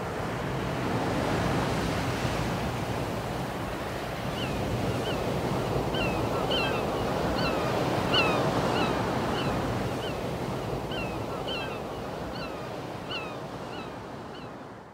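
Steady wash of sea waves with wind, and from about four seconds in, short repeated high calls of seabirds over the water. The sound fades out at the very end.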